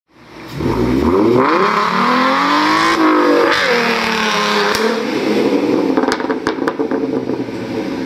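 Car engine revving during a burnout, its pitch climbing, dropping and climbing again before holding high under a hiss of tyre noise. A few sharp cracks come near the end.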